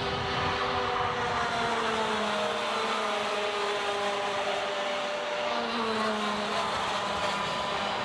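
Several two-stroke racing go-kart engines running together as a pack, their pitches sliding down and climbing again as they go through the corners.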